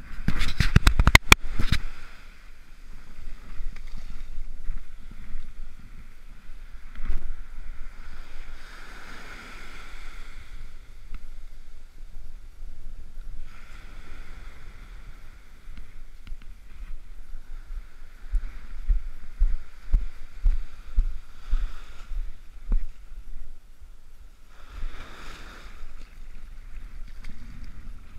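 Wind buffeting the microphone over small surf waves washing up a sandy beach. There is a burst of sharp knocks and rustles in the first two seconds, and a wash of surf swells up twice.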